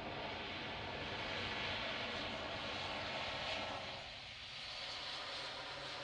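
ATR 72 twin-turboprop airliner taxiing slowly on the runway after landing, its engines and propellers running with a steady drone.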